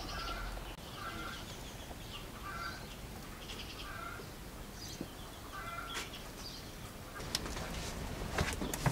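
Chickens clucking in short calls about once a second, with a few sharp knocks near the end.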